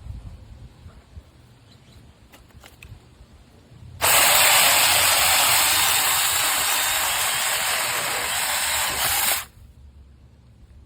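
Saker 6-inch cordless electric mini chainsaw running for about five seconds, starting about four seconds in and cutting off suddenly.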